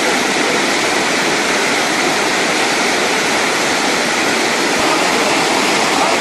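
Kumbakarai Falls pouring down at close range: a loud, steady rush of water crashing onto the rock and the bathers beneath it.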